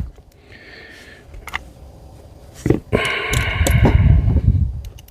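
Handling noise from threading a fitting into the disassembled air rifle: a few light clicks, then a longer rasping rub about three seconds in.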